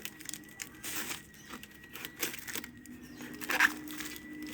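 Packaging being handled during an unboxing: irregular rustling and crinkling with small clicks, the loudest rustle about three and a half seconds in.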